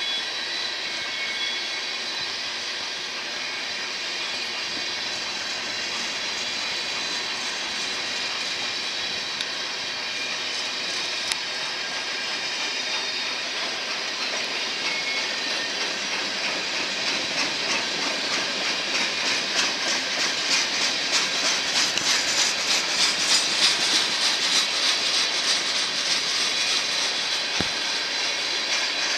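Loaded crude-oil tank cars of a freight train rolling past, their steel wheels on the rails making a steady hiss. A fast rhythmic clicking of wheels over the rail joints grows louder through the second half as the train picks up speed.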